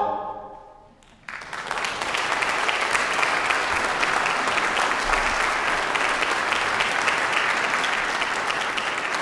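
A choir's last sung chord fades out in the room's reverberation. About a second in, an audience starts applauding, with steady clapping.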